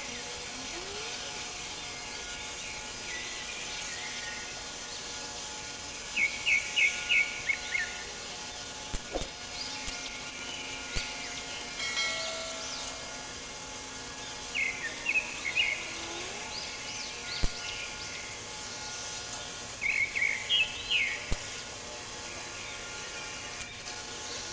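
Steady hiss of a large gas heating torch flame heating a steel pipe for bending. Small birds break in several times with short bursts of quick, high chirps, the loudest sounds present.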